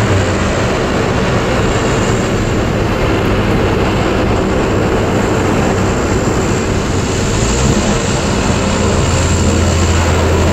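Steady noise of an old pickup truck driving at road speed, heard inside the cab, with the roof-mounted propeller made from a converted wind turbine running to help push the truck. A low hum fades just after the start and comes back about nine seconds in.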